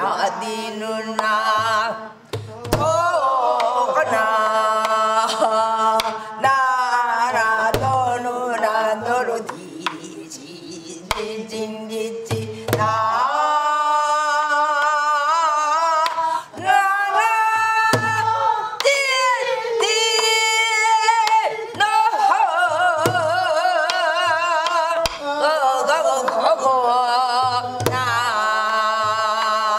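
A woman singing Korean gueum, wordless pansori-style vocables, on long held notes with a wide, wavering vibrato, accompanying herself with stick strokes on a buk barrel drum that sound as a low thump every one to three seconds.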